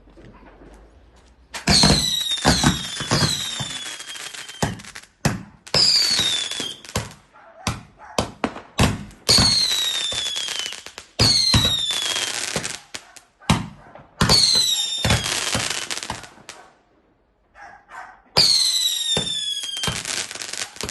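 Fireworks going off in a series of about six loud shots, each a bang followed by a high whistle that falls in pitch and a burst of crackling. There is a short lull before the last shot.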